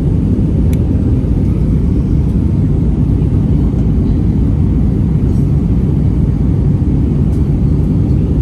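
Steady low rumble of engines and airflow heard inside the cabin of an Airbus A320 airliner in flight.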